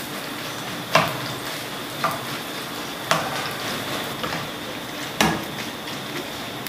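Hot oil sizzling steadily as spinach-and-gram-flour batter fritters deep-fry in a non-stick pan. A wire mesh skimmer stirs them, knocking sharply against the pan four times.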